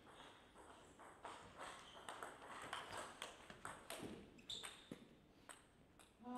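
Table tennis rally: the ball clicking off rackets and table in a quick, uneven run of faint hits that stops about five and a half seconds in, when the point ends.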